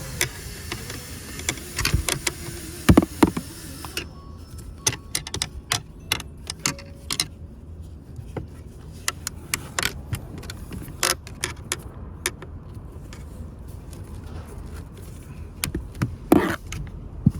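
Irregular plastic clicks, taps and rattles as wiring harness clips are worked loose from under a car seat, with a louder cluster of knocks a few seconds in and again near the end.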